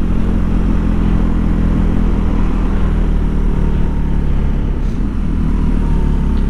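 BMW R nineT's air/oil-cooled boxer twin running steadily at a moderate road speed, mixed with wind and road rush at the bike-mounted camera.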